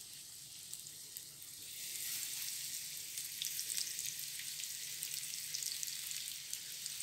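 Coated stuffed pomfret sizzling as it shallow-fries in hot oil in a frying pan, with scattered crackles. The sizzling grows louder about two seconds in, as a second fish is laid into the oil.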